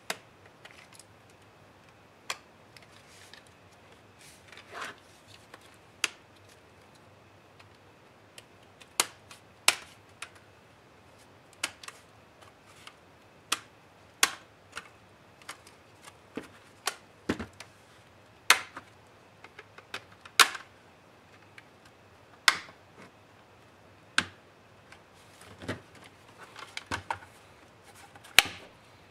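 Plastic snap clips of a Lenovo ThinkPad Helix's back cover clicking loose as a pry tool is worked along the seam. The sharp clicks come at irregular intervals, a few of them louder snaps, with near quiet between.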